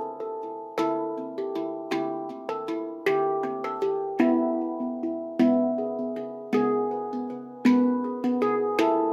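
Instrumental background music of struck, pitched notes that ring and fade, with a stronger accent about once a second and lighter notes between.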